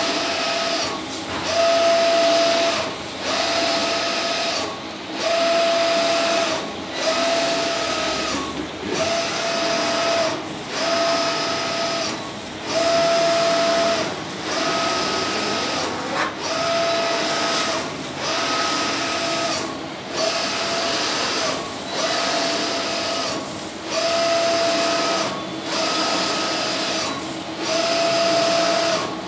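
Large-format inkjet banner printer running: its print-head carriage whines across the banner in passes of about two seconds, each pass separated by a brief dip, in an even repeating rhythm.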